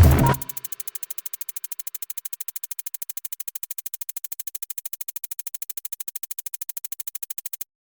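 Electronic background music: a loud synth passage ends about half a second in. A quieter, rapid, even pulsing follows at about ten pulses a second and cuts off suddenly near the end.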